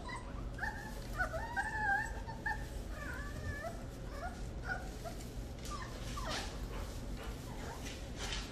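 Eight-week-old Rottweiler puppies whining and yipping: many short, wavering high-pitched whines in the first half, thinning out after that, with a steady low hum behind them.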